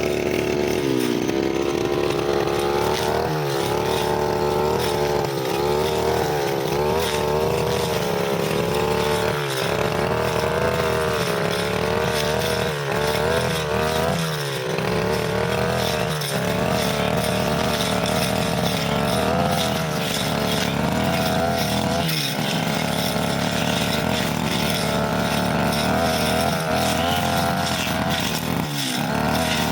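Brushcutter engine running at high speed while cutting grass, its pitch wavering and dropping sharply every few seconds as the blade bites into the grass under load.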